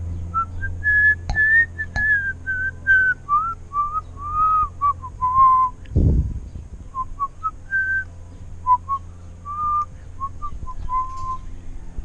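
Cockatiel whistling a song: a run of short, clear whistled notes that step and slide up and down, with a short break about halfway. A single low thump sounds at the break.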